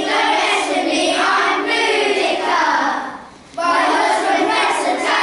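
A group of children singing together in unison, with one short pause for breath about three seconds in.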